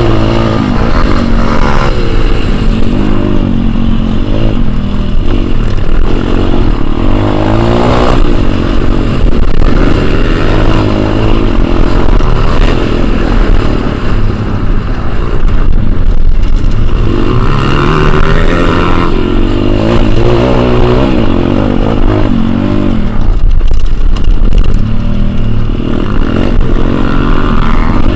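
Pit bike engine revving up and down again and again, heard from on board as the bike is ridden hard round a dirt motocross track.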